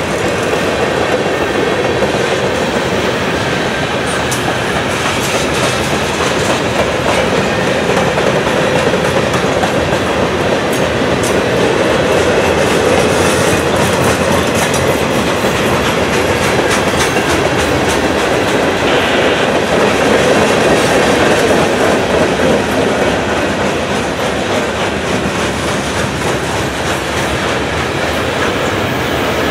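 Freight cars of a long Norfolk Southern manifest train rolling past close by: a steady rumble of steel wheels on rail, with rapid clicking as the wheels cross rail joints.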